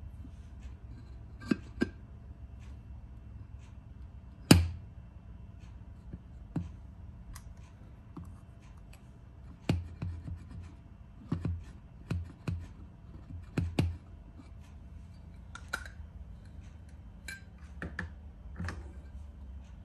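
Glass panels being set into a metal cube frame: scattered clicks and knocks of glass meeting metal and of a suction-cup lifter being handled, the loudest about four and a half seconds in, over a low steady hum.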